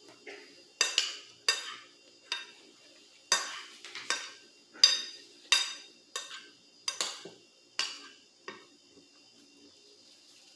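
Metal spoon scraping and clinking against a glass plate as food is scooped: about a dozen sharp, ringing strokes, stopping about two seconds before the end.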